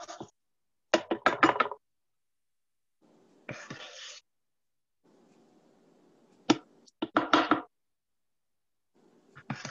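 Measuring cup and utensils knocking and clattering against a mixing bowl and cupcake pan as batter is scooped, in quick clusters of knocks about a second in and again around seven seconds, with shorter scraping sounds in between. Heard over a video call that cuts to silence between the sounds.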